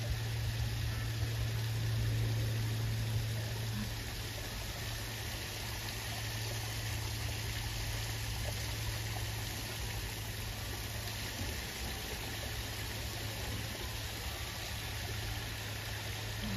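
Steady rush of running water in a pool, with a low steady hum that is strongest for the first few seconds.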